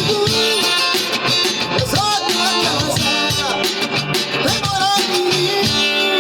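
Music led by guitar, with a steady beat and a gliding melody line over it.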